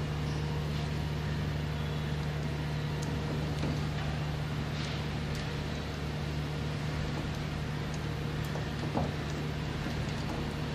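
Steady low machine hum, with a few faint clicks and taps from a screwdriver and wire being worked at the terminal screws of a changeover switch.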